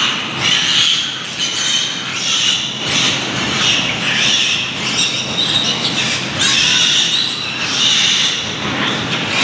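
Young piglets squealing and squeaking in a continuous, overlapping chorus as they jostle at a nursing sow's teats.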